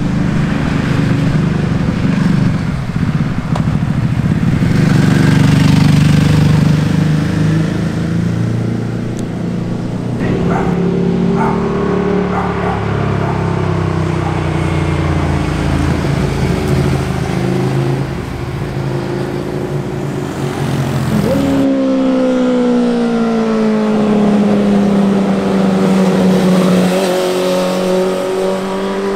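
Sport motorcycles passing one after another on a winding road, their engines revving and dropping off through the corners, with abrupt changes about ten and twenty-two seconds in. In the last part one engine's pitch falls steadily.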